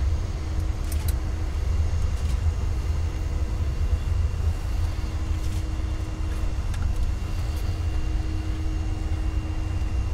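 Airbus A330 taxiing at idle thrust after landing: a steady low rumble with a faint, even hum over it.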